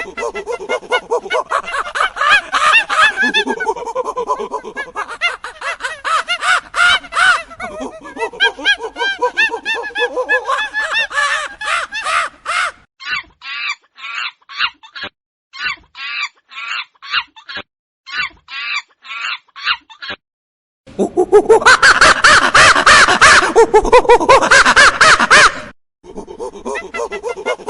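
Monkeys calling, several at once: dense, overlapping shrieks and chatter. Partway through, this gives way to a rapid series of short, sharp calls at about two a second. After a brief break near the end comes a very loud bout of screaming, then more calls.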